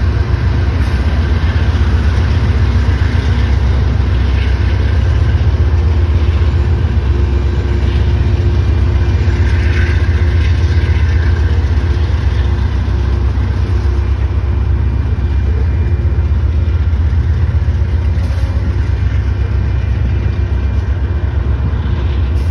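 Freight train passing a grade crossing: the trailing diesel locomotives' engines and then covered grain hopper cars rolling over the rails, a loud, steady low rumble.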